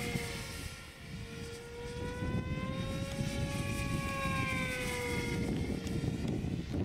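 Electric Quickie 500 RC pylon racer's motor and propeller whining in flight, the pitch slowly rising and then falling; the whine fades out near the end.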